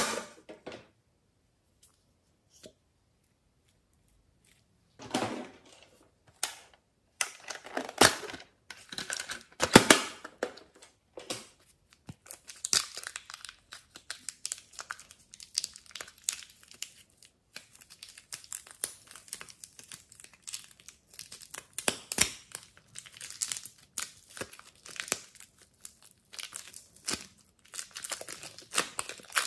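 Thin plastic wrapper crinkling and soft clay tearing as blue modelling clay is squeezed out of its packet and pulled apart by hand. It comes as a string of short, irregular crackles, starting about five seconds in.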